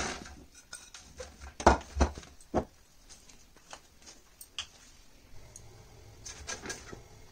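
Knocks and taps of cauliflower florets and hands on a metal baking tray on a kitchen counter. The loudest three come close together about two seconds in, with lighter taps scattered after.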